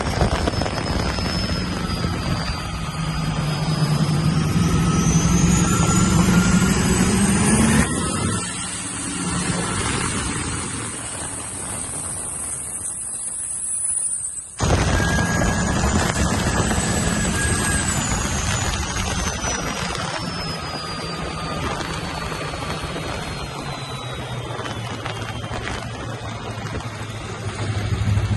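Twin-turbo GM LT V8 in a ski boat running on a low-boost run, its twin Garrett G35 turbochargers whining. The whine rises steadily for about eight seconds, then the level drops. About halfway through the sound almost cuts out, then the engine runs on with the whine slowly falling.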